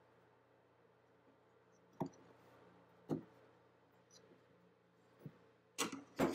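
Knocks and clicks of a homemade aluminium camera body being handled and shifted on a wooden workbench: a light knock about two seconds in, another a second later, and two louder clicks close together near the end.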